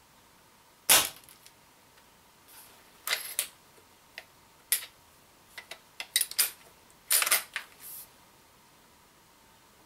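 Umarex Legends Cowboy lever-action CO2 BB rifle firing one sharp shot about a second in. A run of clicks and clacks follows from about three seconds in as the rifle is handled and cycled for the next shot.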